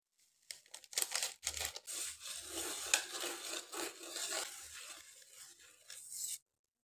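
Wire whisk stirring dry sugar and jelly powder in an aluminium saucepan: a gritty scraping and rasping of granules against the metal, with a sharp click about three seconds in. It stops about six seconds in.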